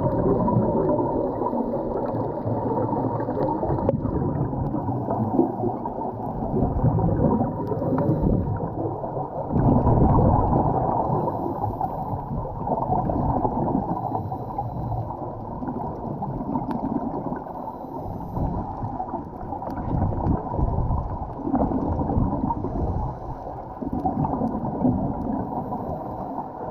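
Muffled underwater water noise, churning and gurgling in uneven surges, as picked up by a camera underwater.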